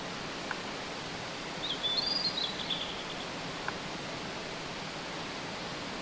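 Blue-and-white flycatcher singing one short phrase of whistled notes about two seconds in, over the steady rush of a mountain stream.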